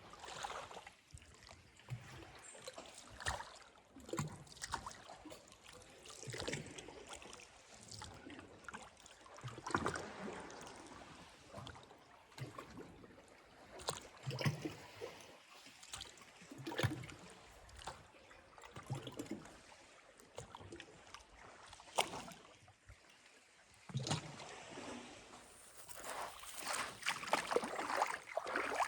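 Calm seawater lapping and sloshing in small, irregular splashes every second or two, with a few sharp clicks of water, and a longer wash of water near the end.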